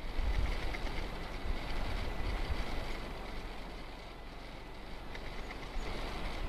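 Wind buffeting the microphone in irregular gusts, a low rumble over a steady faint rushing hiss.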